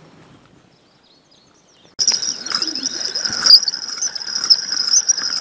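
Quiet for about two seconds, then a loud, steady, high-pitched insect chirring starts abruptly, with bird chirps and small ticks over it.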